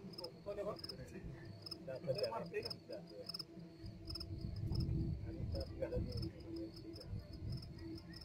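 Crickets chirping in a steady, even rhythm of about three chirps a second, with a low rumble in the middle.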